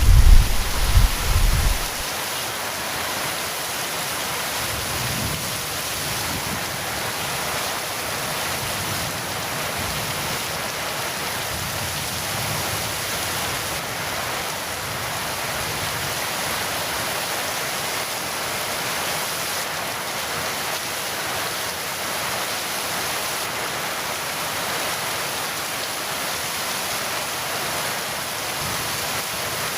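Heavy rain falling steadily in an even hiss, with the end of a thunder rumble dying away in the first two seconds.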